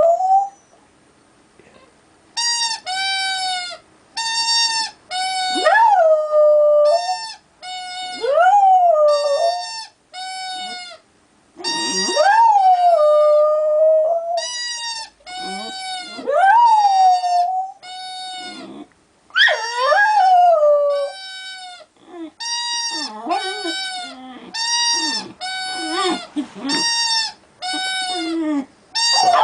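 American Staffordshire Terrier howling like a wolf: a long run of howls and whines, some held on one pitch and some sliding up and down, with short breaks between them.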